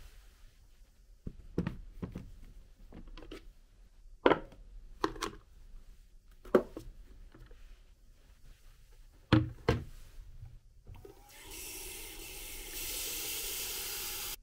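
Plastic parts of an aroma diffuser knocking and clattering as they are handled, then a tap running water into the diffuser's round plastic tank, the flow getting louder near the end.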